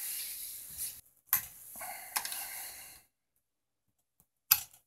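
Cables being pulled off the connectors of an LCD TV's power supply board: rustling and scraping of wire and plastic, with a few sharp clicks of connectors and latches. After a pause, a single loud click comes near the end.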